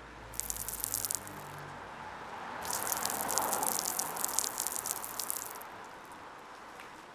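Crackling rustle of a thick blanket being pulled and wrapped around a body, in two bursts: a short one just after the start and a longer, louder one from about two and a half to five and a half seconds in.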